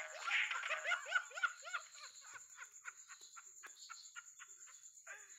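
A woman laughing hard in quick repeated high-pitched bursts, loud at first and growing fainter toward the end.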